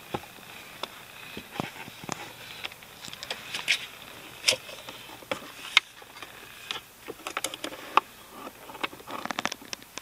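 Scattered clicks, taps and rustles of hands handling a dash-cam power cable in a car: pressing it under the floor-mat edge, then working the plastic plug into the 12-volt socket in the console, with a cluster of clicks in the second half.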